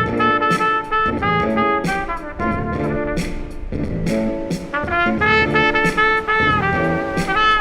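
Trumpet playing a melody of short and held notes over a lower accompaniment.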